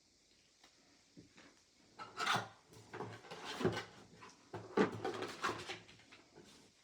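Cardboard packaging being handled and slid open: irregular rubbing and scraping with a few light knocks, busiest from about two to six seconds in.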